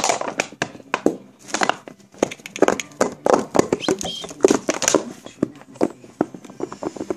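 Empty plastic cola bottle crackling and crunching as a Border Collie bites and shakes it: irregular bursts of crinkling plastic and sharp clicks.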